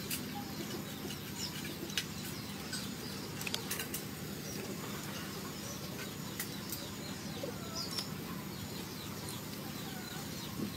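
Outdoor ambience: birds chirping now and then over a steady low background, with a few light clicks.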